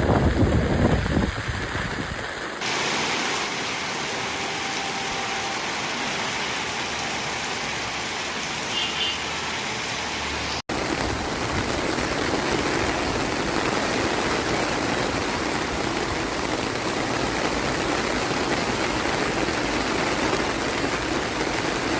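Heavy rain, a steady dense hiss of downpour. It shifts abruptly about three and eleven seconds in as the footage cuts, and a low rumble of wind on the microphone sits under the first second or two.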